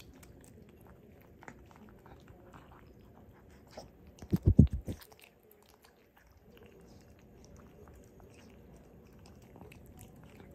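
Maltese puppies eating dry kibble from glass bowls: soft chewing and crunching with small clicks. About four and a half seconds in, a short run of four or five loud, deep thumps.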